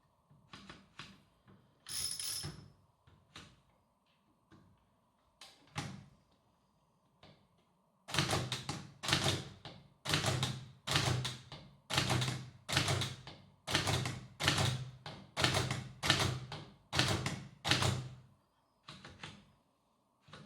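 Hammond Multiplex typewriter being typed on, its hammer striking the paper against the type shuttle. A few scattered light clicks come first. About eight seconds in, a steady run of sharp strikes begins at roughly two a second, then tails off into a few lighter clicks.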